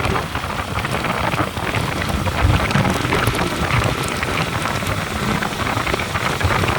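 Steady rushing noise of wind and road with a low, uneven rumble, as heard while riding a motorcycle.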